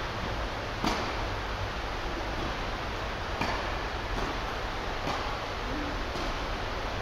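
Tennis rally: a ball struck by rackets and bouncing, five sharp hits, the loudest about a second in, over a steady hiss of heavy rain on the hall's roof.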